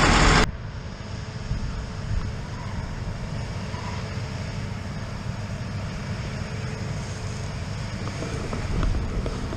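Steady low vehicle engine rumble with wind on the microphone; a louder engine sound breaks off abruptly about half a second in.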